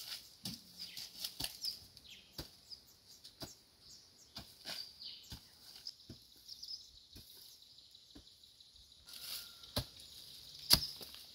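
Small birds chirping steadily over many irregular sharp clicks and knocks, the loudest one near the end.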